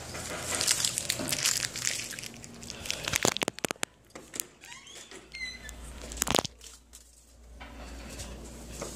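Plastic snack packaging crinkling and rustling as it is handled, with a few sharp clicks and one louder click about six seconds in.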